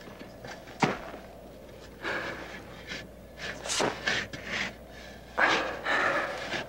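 Shovels digging into dry, hard desert ground: a few sharp strikes of the blade and rasping scrapes of soil being lifted and thrown.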